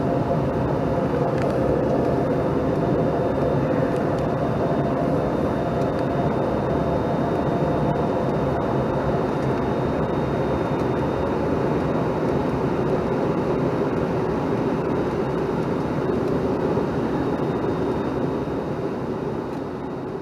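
Cabin noise of a Bombardier CRJ-700 airliner in flight: a steady rush of jet engines and airflow with a thin, high steady whine over it, easing down near the end.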